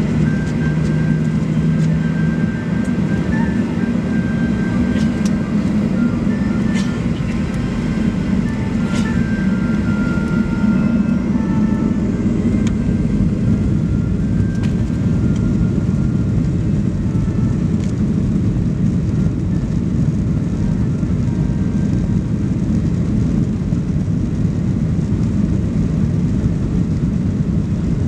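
Cabin noise inside a Boeing 737 Next Generation on the runway: its CFM56-7B engines run with a steady low rumble as the airliner rolls for takeoff.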